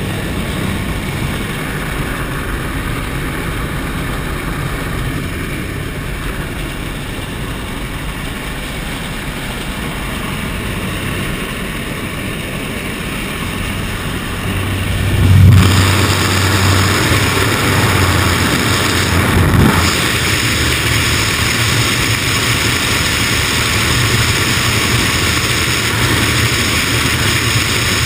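A light aircraft's propeller engine droning, with wind rushing past the open jump door inside the cabin. About halfway through the rush suddenly gets louder with a gust of wind buffeting, a second gust follows a few seconds later, and it stays louder to the end, as the sound comes from nearer the open doorway.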